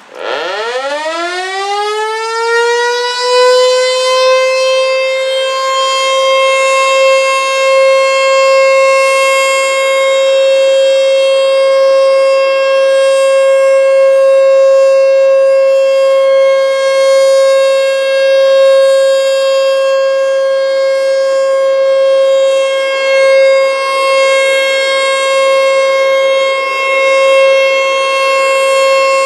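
American Signal T-121 electromechanical outdoor warning siren winding up from a low growl to a single steady high tone over about three seconds, then holding that tone with slight swells in loudness. It is a scheduled siren test.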